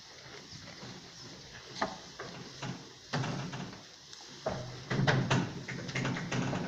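Irregular knocks and clatter that grow denser and louder about halfway through, with a low rumble mixed in and the loudest stretch about five seconds in.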